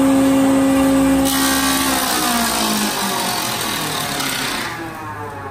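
General thickness planer with a 3-phase, 5-horsepower motor, switched off while a board is feeding through: the hum of motor and cutterhead falls steadily in pitch as it coasts down, yet the cutterhead keeps planing, with a harsh cutting noise from about a second in until near the end.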